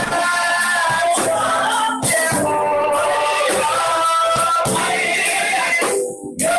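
A worship song sung with instrumental accompaniment and light percussion, the voices holding long notes. The music briefly drops away near the end.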